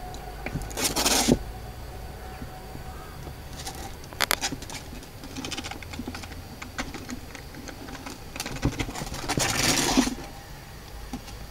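Kittens scrabbling and play-fighting on plastic garden furniture: claws clicking and scratching on the plastic, with two longer, louder bursts of scratchy noise, one about a second in and one near the end.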